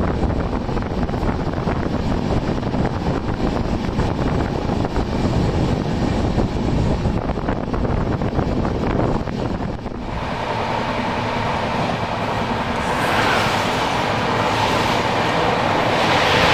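Passenger train running at speed, heard from an open coach door: a steady rumble of wheels on rail with wind rush. About ten seconds in the sound changes, then grows louder with a rushing hiss as another passenger train passes close by on the next track near the end.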